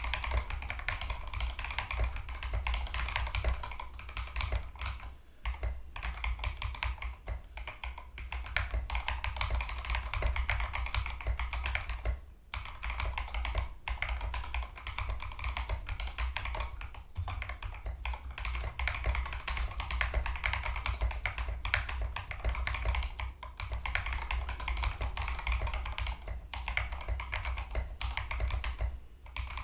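TM680 mechanical keyboard with stock KTT Strawberry linear switches being typed on: a rapid, continuous clatter of keystrokes, broken by a few brief pauses.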